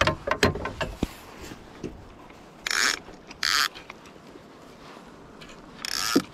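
A few sharp knocks against the wooden boat in the first second, then three short buzzing bursts from the fishing reel during the fight with a hooked pike, twice near the middle and once near the end.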